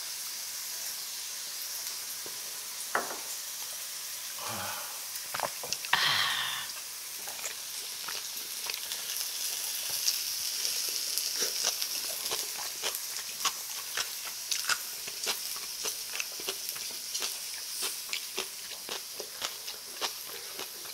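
Beef, potato and mushroom slices sizzling on a tabletop grill pan, a steady high hiss. Many small sharp clicks of eating and chopsticks run over it from about eight seconds in, with a brief louder sound about six seconds in.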